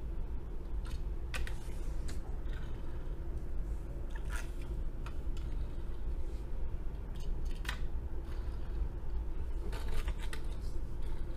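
Scattered light clicks and taps of a die-cast metal toy construction vehicle being handled and turned in the hand, over a steady low hum.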